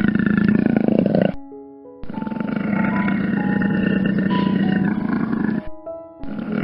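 Lion roaring twice, a short roar and then a longer one starting about two seconds in, over soft background music.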